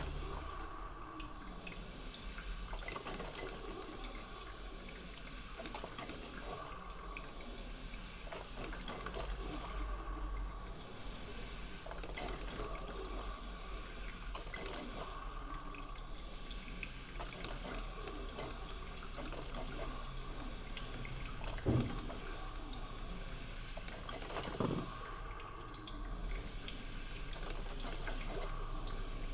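Coffee maker brewing: a steady bubbling and gurgling of water, with two short low knocks near the end.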